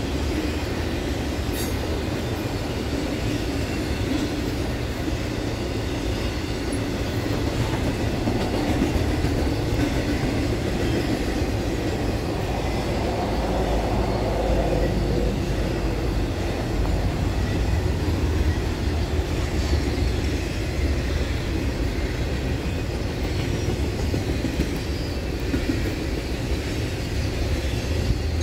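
Intermodal freight cars loaded with highway trailers and double-stacked containers rolling past: a steady rumble of steel wheels on rail with clickety-clack.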